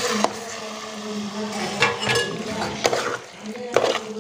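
Ladle stirring marinated chicken into gravy in a metal cooking pot, knocking against the pot four times about a second apart, over a steady low hum.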